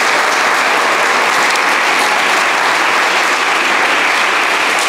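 Audience applauding: dense, steady clapping that holds at one level throughout.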